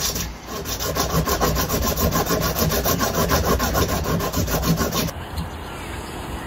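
Rapid, even rasping scrape, about ten strokes a second, that stops abruptly about five seconds in.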